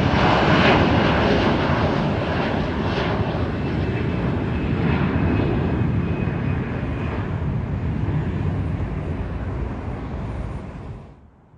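The twin turbofan engines of an Embraer E175 regional jet rolling down the runway: a loud, steady rush of jet noise that slowly fades as the aircraft moves away, then cuts off abruptly near the end.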